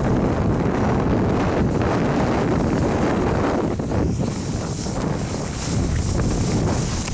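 Heavy wind buffeting the microphone of a camera carried by a kitesurfer while riding, a steady low rush with the sound of water running under the board.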